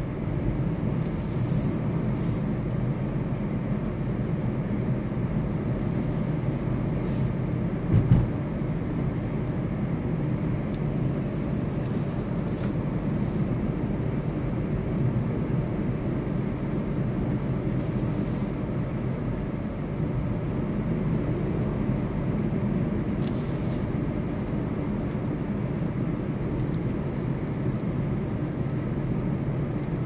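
Steady low road and engine rumble heard inside the cabin of a moving car, with one brief thump about eight seconds in.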